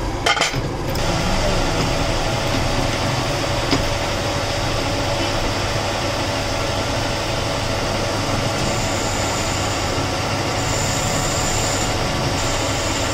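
Metal lathe running steadily while a cutting tool turns a steel part, a few sharp clicks about half a second in. A thin high whine comes and goes over the last few seconds.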